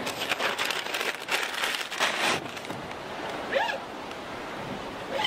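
Cardboard box and paper packing rustling and scraping as a new clutch friction plate is lifted out by hand, busiest in the first couple of seconds.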